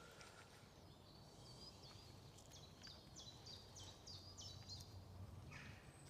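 Faint songbird song in a woodland: a run of short, high, down-slurred notes repeated about three times a second, over quiet outdoor background.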